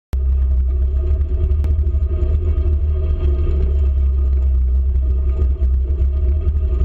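Polaris Ranger utility vehicle driving across a grassy field: a steady engine and drivetrain hum over a heavy low rumble.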